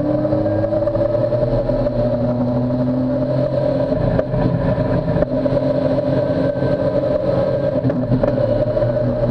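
Modified BMW S54 straight-six race engine with carbon airbox, heard from inside the stripped cockpit, running loud and steady under load. Its pitch climbs slowly near the start and then holds without a break from a gear change.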